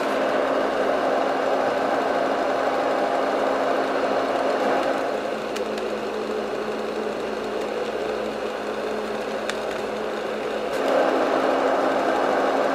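Marpac Sleep Mate sound conditioner running: its internal fan makes a steady rushing white noise over a low motor hum. The noise drops a little about five seconds in and rises again near the end.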